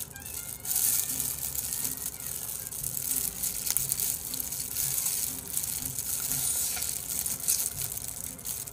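Close-up chewing of crispy fried chicken: the batter crunching and crackling in a dense hiss, with an even chewing rhythm underneath.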